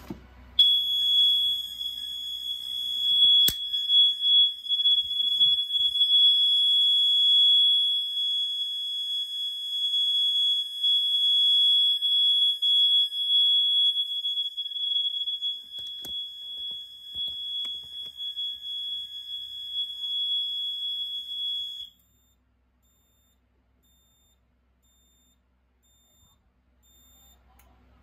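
Fire alarm duct detector sounder giving a steady, ear-piercing high-pitched tone, switched on from the annunciator's control switch. It cuts off suddenly after about twenty seconds.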